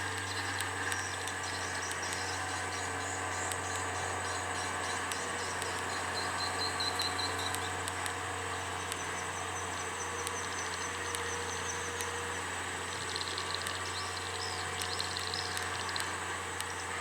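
Insects trilling in high, pulsing bursts that come and go, over a steady low engine drone from a vehicle on the hill road.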